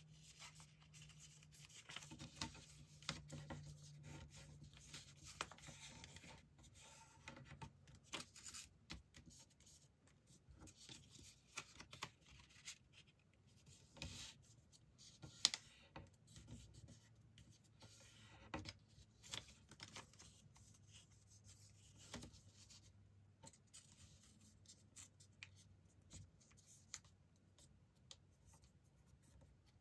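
Faint, irregular rustling and crinkling of a sheet of A4 paper being folded into a paper airplane, with fingers creasing the folds and pressing the paper against the tabletop; one sharper tap about halfway through.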